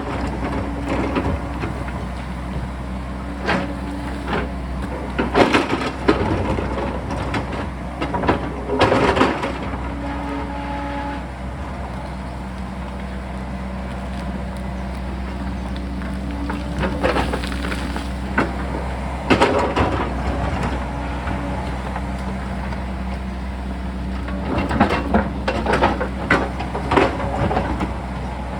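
Sany excavator's diesel engine running steadily while the machine digs, with repeated clanks and crunching bursts of the bucket working rock and soil, clustered near the start, around the middle and near the end.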